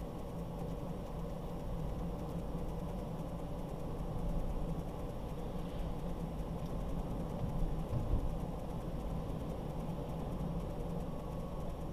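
Car driving, with a steady low rumble of engine and road noise and a brief low thump about eight seconds in.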